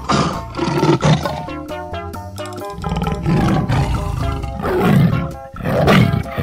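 Big-cat roar sound effects, first a lion's and then a tiger's, several times over background music. The loudest roars come near the end.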